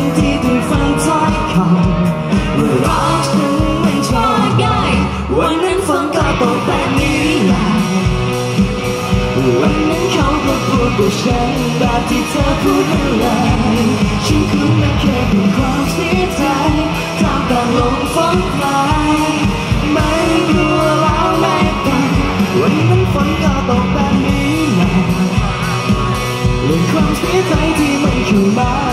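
Live performance of a Thai pop-rock song: singers on microphones over strummed acoustic guitar, with bass and a steady beat, amplified through a PA.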